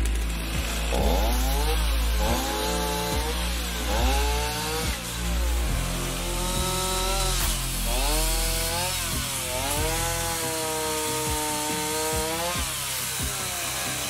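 Stihl two-stroke chainsaw cutting into a conifer trunk, repeatedly revving up and dropping back as the chain bites, about once a second at first, then in longer held pulls.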